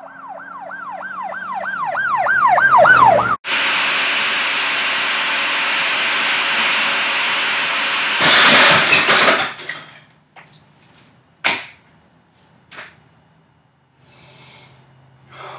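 A siren-like warbling tone that speeds up and grows louder for about three seconds, then cuts off suddenly. A food processor motor then runs steadily, chopping portobello mushrooms. About eight seconds in comes a loud harsh clatter lasting about a second, the new food processor breaking, followed by a few knocks.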